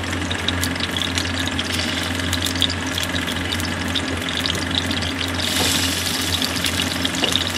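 Chicken kebabs shallow-frying in hot oil in a kadhai: a steady sizzle full of quick crackles. The sizzle grows brighter and louder about five and a half seconds in, as another kebab goes into the oil. A steady low hum runs underneath.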